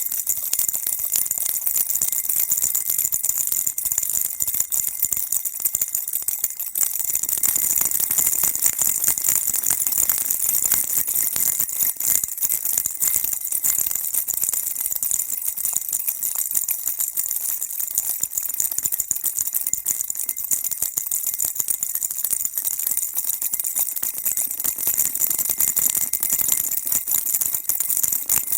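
Baby rattle shaken continuously: a steady, dense, high-pitched rattling with no pauses.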